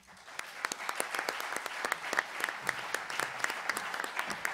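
Applause from an audience, many hands clapping; it builds up over the first second and then goes on steadily.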